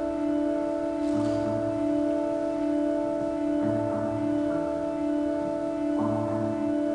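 Live ambient instrumental music: a steady held drone chord, with a short low bass note sounding about every two and a half seconds, three times.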